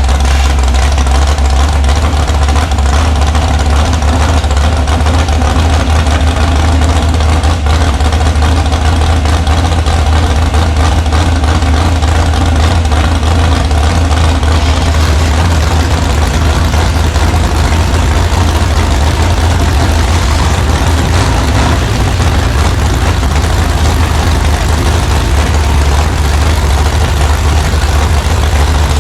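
Demolition derby car's engine running steadily at idle, loud and deep, with a heavy low rumble.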